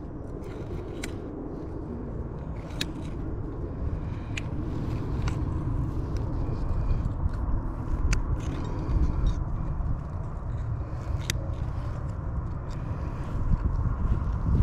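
Low rumbling handling noise on the microphone, growing louder, with a few short sharp clicks scattered through it, as a hook is worked out of a gut-hooked bass's throat.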